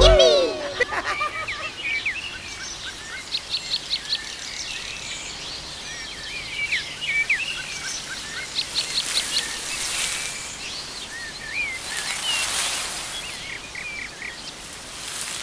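Songbird ambience: many small birds chirping and trilling, with quick runs of rapid notes, over a soft steady hiss. The last of the song's music dies away in the first second.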